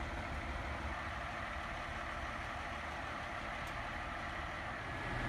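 Fire truck diesel engines idling: a steady low engine rumble.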